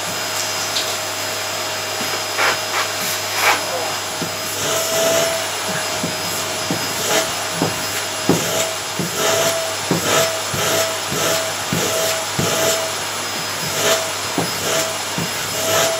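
Vacuum cleaner running steadily with a constant whine. Many short scraping knocks run through it, and from about a third of the way in its tone swells briefly again and again, as the cleaner head is worked over the carpet.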